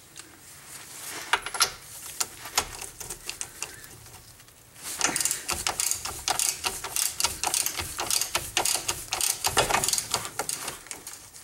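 Socket ratchet clicking while working the rusty castle nut on an outer tie rod end's ball stud: a few scattered clicks at first, then fast, steady clicking from about halfway on. The stud is turning along with the nut rather than the nut coming off.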